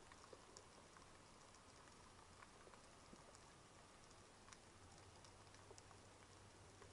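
Near silence: faint underwater ambience with a low hum and scattered small clicks.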